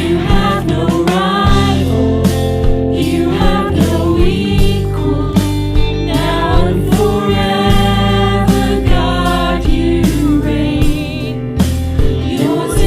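Contemporary worship song: sung vocals over band accompaniment with sustained bass and a steady beat.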